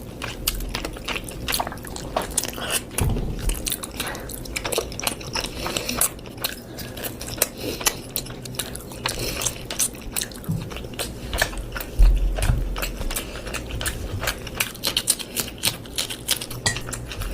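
A person chewing and biting chicken and rice close to the microphone: a dense, irregular run of wet mouth clicks and bites. Two low thumps come in, one about three seconds in and a louder one about twelve seconds in.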